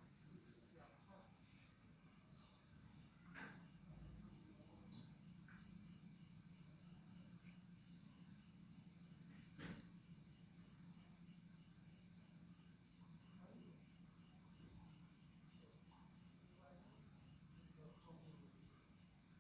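Steady high-pitched chirring of insects, a continuous fast-pulsing chorus, with a few faint clicks over it.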